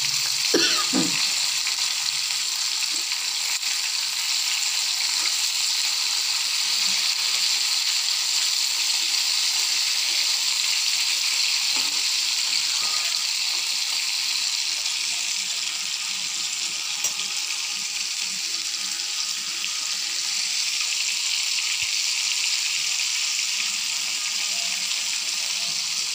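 Flour-coated chicken pieces deep-frying in hot oil in a kadai: a steady, even sizzle.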